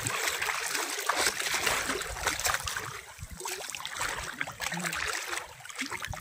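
Shallow river water sloshing and lapping around the legs of people wading, with many small irregular splashes.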